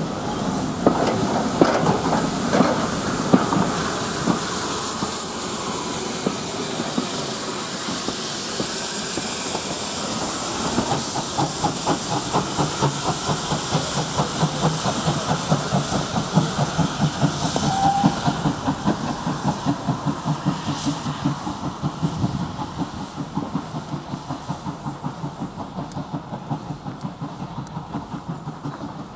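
Steam train departing: coaches roll past with clickety-clack over the rail joints, then the rear steam engine, GWR 0-6-0 saddle tank 813 banking the train, goes by working hard with quick, regular exhaust beats and steam hiss. The beats fade as the train pulls away.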